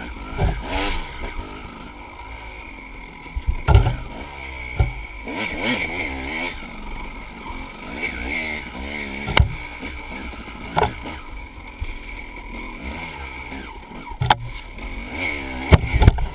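KTM enduro dirt bike engine revving up and down over and over as it is ridden on rough trail, with several sharp knocks as the bike hits bumps.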